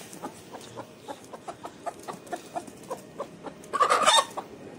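Chickens clucking softly, many short calls in a row, with one louder call of about half a second a little under four seconds in.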